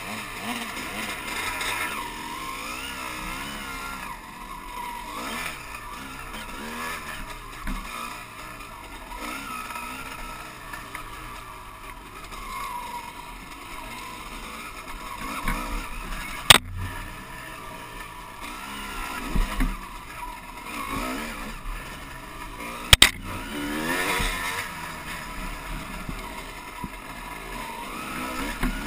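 Dirt bike engine revving up and down as it is ridden over a rough dirt trail, with two sharp knocks: one about halfway through and another some six seconds later.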